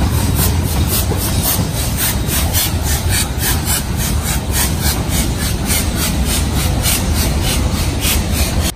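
Steam locomotive No. 1271 pulling away, its exhaust chuffing in an even rhythm of about three to four beats a second over a heavy low rumble. The sound cuts off suddenly near the end.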